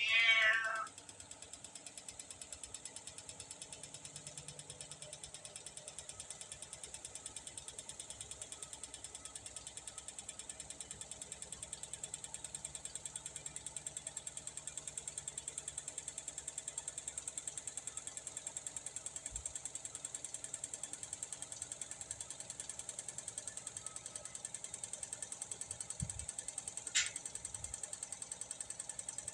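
A cat meows once, loudly, with a falling pitch, right at the start. After that a converted washing-machine carpet spinner runs with a fast, even mechanical rattle, and a single sharp click comes near the end.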